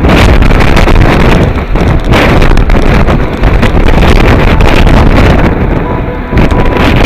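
Gale-force wind buffeting the microphone in loud, gusting rushes with a heavy low rumble.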